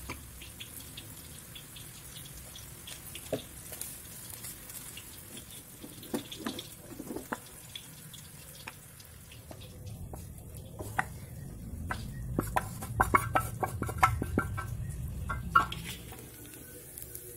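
Stovetop cooking: a steady hiss of bok choy simmering in a small pan while a spatula scrapes and taps it. In the second half, a metal spoon clanks and rings against a wok as chicken fries in oil.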